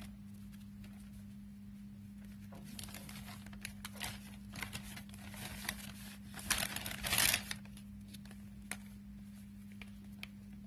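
Cosmetic tubes and packaging being handled: rustling, crinkling and small clicks as items are picked up and moved, busiest and loudest about six to seven seconds in, over a steady low hum.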